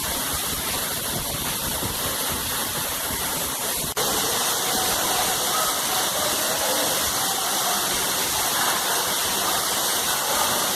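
Waterfall rushing, a steady loud wash of falling water. About four seconds in it breaks for an instant and comes back slightly louder.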